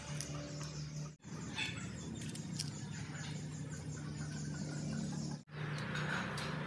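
A small knife slicing pieces off a firm green mango held in the hand, with faint cutting clicks over a steady background with a low hum. The sound drops out abruptly for a moment twice.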